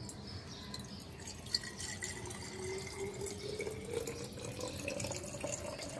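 Water poured in a steady stream from a glass beaker into a glass Erlenmeyer flask, splashing inside it, with a tone that rises slowly as the flask fills.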